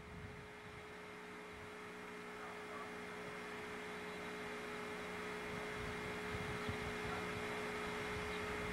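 Faint, distant jet engines of a Boeing 757-200 running at low power as it rolls along the runway: a steady hum over a rushing noise that slowly grows louder.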